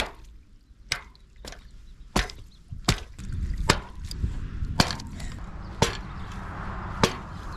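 Repeated sharp knocks, roughly one a second, as a blown-out plug is driven back into an irrigation line, with a steady rushing noise building underneath from about three seconds in.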